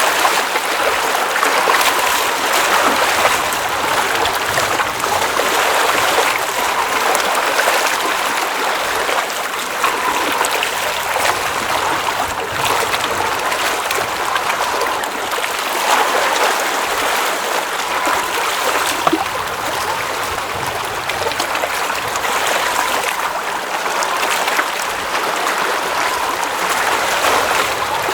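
Water at a glacial mountain lake running and trickling steadily, with small gurgles now and then.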